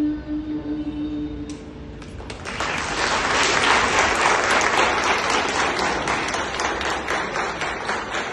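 A female singer's held final note trails off in the first second and a half. About two seconds in, the audience breaks into applause, which builds quickly to a loud, steady clapping.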